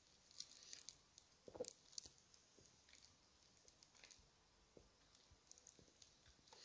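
Faint gulping and swallowing as soda is chugged from an upturned plastic bottle, with small wet clicks and crackles that are densest in the first two seconds and scattered after.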